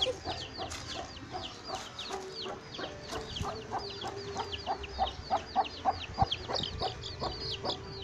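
Baby chicks peeping: a continuous run of short, high, falling peeps, about four a second, with fainter lower calls joining from about two seconds in.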